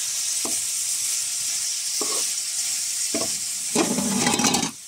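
Goat meat and onions sizzling in oil in a metal kadai, with a steady high hiss, while a metal spatula scrapes and stirs through them in short strokes. Near the end comes a longer, louder stretch of stirring, and the sizzle then drops.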